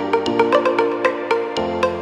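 Background music: short, evenly repeated notes about four a second over held chords, with a chord change about a second and a half in.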